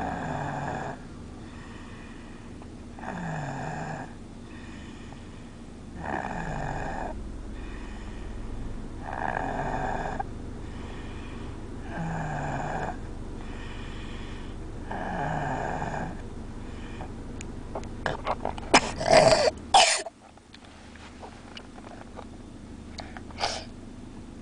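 A sleeping toddler snoring, one snore about every three seconds. About three-quarters of the way through, the snoring breaks into a few loud, sharp coughs as the child chokes on saliva.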